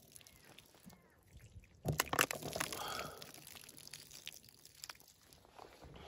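Water sloshing in a plastic bowl of rinsed raw meat and being poured off onto the ground, with a louder burst of clattering about two seconds in.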